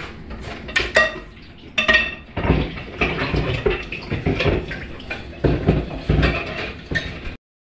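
Dishes and cutlery clinking and knocking. There are a couple of ringing clinks about one and two seconds in, then a run of duller knocks and rattles that cuts off abruptly near the end.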